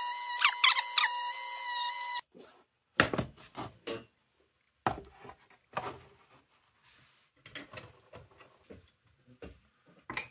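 A steady high-pitched whine laced with repeated sliding squeals, cutting off abruptly about two seconds in. Then scattered knocks and clatter as parts are handled and set down on a workbench.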